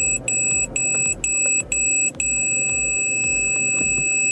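Aftermarket reversing parking-sensor buzzer beeping about twice a second, then switching to one steady unbroken tone about two seconds in: the continuous warning for an obstacle at the closest range.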